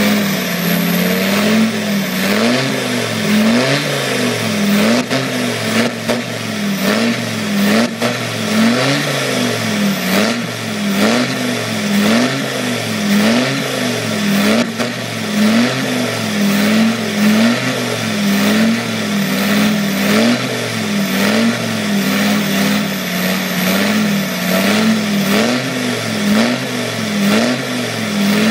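Land Rover Defender 90 engine being revved up and down over and over, about once a second, without a break.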